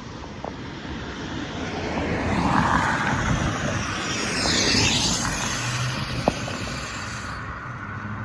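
Road traffic driving past: vehicle noise swelling twice as cars go by, about two and a half and five seconds in, with one sharp click near the end.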